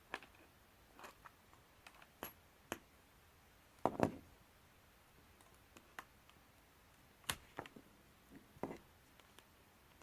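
Scattered small clicks and taps of hand tools and small parts being handled while working on an action camera, with a louder knock about four seconds in and another just after seven seconds.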